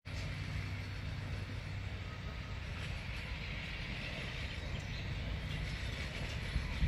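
Narrow-gauge steam train running in the distance: a steady low rumble, growing slightly louder toward the end as it comes nearer.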